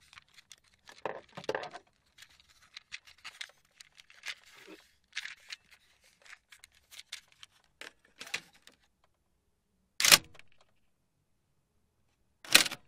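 Car cassette tape deck and cassette handled: a run of small plastic clicks and rattles, then two loud mechanical clunks from the deck, one about ten seconds in and one near the end.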